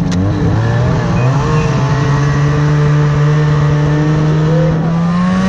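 Snowmobile engines pulling away through deep powder, the pitch rising over the first second or so, then running steadily at speed.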